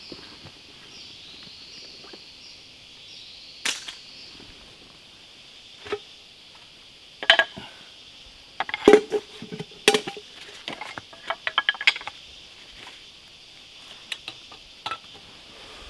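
Bushcraft gear being handled on a ground sheet: a string of sharp clacks and knocks as wooden and metal tools are picked up and set down, the busiest about halfway through. Under it runs a steady high-pitched insect drone.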